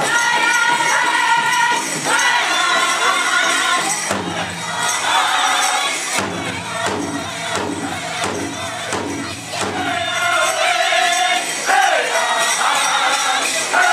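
A powwow drum group singing a dance song in high, held voices over a steady beat on a big drum, with the jingling of dancers' bells.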